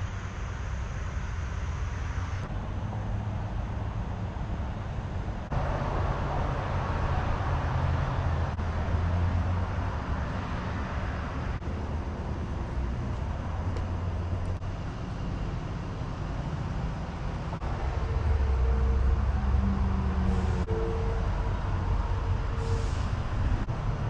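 Steady low rumble of vehicle traffic, with an engine hum coming in for a few seconds near the end.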